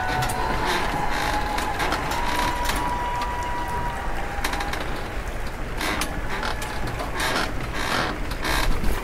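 Machinery running steadily, with a thin high squeal that fades out about four to five seconds in, then a run of irregular clicks and clacks.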